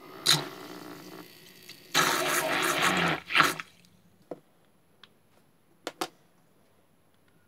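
Water in a plastic cup being churned and splashed by a bent-wire stirring attachment spun by a small homemade DC-motor drill, in two bursts, the second louder and ending about three and a half seconds in. A few light clicks follow.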